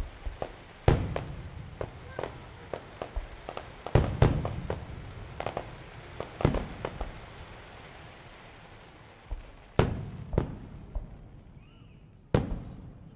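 Aerial fireworks going off: a run of sharp bangs and pops at irregular spacing with crackling in between, the loudest about a second in, around four seconds in and again near the end.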